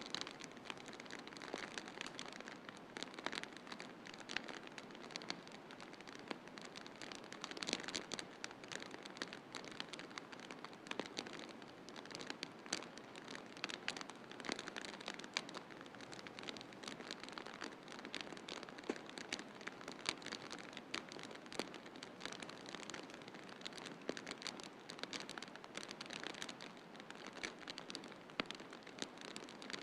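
Wood fire crackling in a fireplace: many small sharp pops and snaps at irregular intervals over a steady hiss of snowstorm wind.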